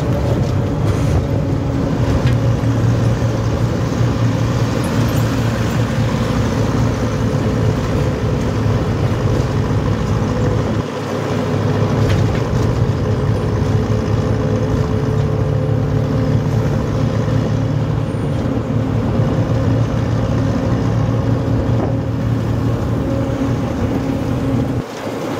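Jeepney's Mitsubishi 4D30 four-cylinder diesel engine running steadily under way. It dips briefly about eleven seconds in and again near the end.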